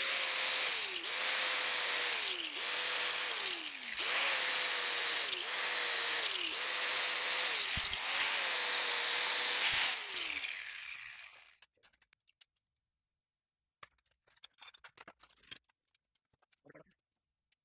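Electric angle grinder running and grinding metal, its motor pitch sagging about nine times as the disc is pressed into the work and recovering in between. About ten seconds in it is switched off and spins down, followed by a few faint handling clicks.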